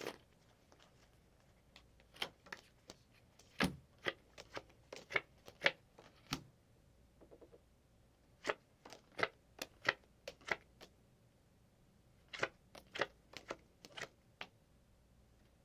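Playing cards dealt one at a time onto a table, each landing with a sharp snap, in three runs separated by short pauses.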